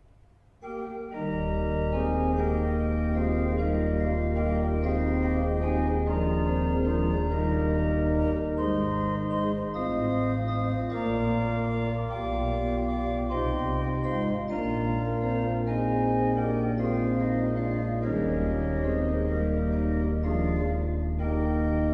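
Church pipe organ playing slow, sustained chords over a held pedal bass, starting about a second in.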